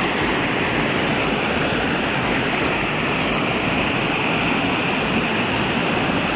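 Small waterfall pouring over a rocky wall into a shallow, stony stream, a steady rush of falling and running water.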